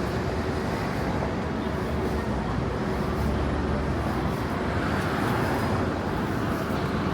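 Road traffic on a city street: a steady rumble of vehicles running past, swelling slightly about five seconds in.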